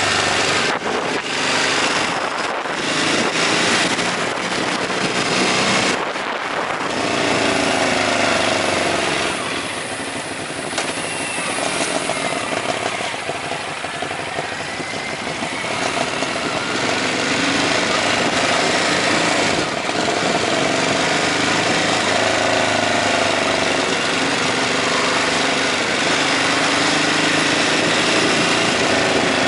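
Ducati Hypermotard 939's L-twin engine with an Akrapovic exhaust, heard from the moving bike: the revs climb and drop repeatedly through gear changes, with wind noise over the microphone.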